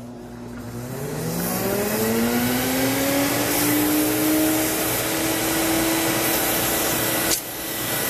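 Sirena water-based vacuum cleaner running as a blower, its exhaust air pushed through the hose to inflate a balloon. The motor spins up with a rising whine that climbs slowly for several seconds and then holds steady over a rush of air. About seven seconds in, a brief click sounds and the whine drops away while the air noise continues.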